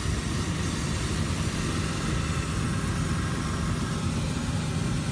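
Hot air balloon's twin propane burner firing in one long blast: a steady, loud roar that starts suddenly and lasts about five seconds. A small engine runs steadily underneath, typical of the gasoline inflator fan used to fill the envelope.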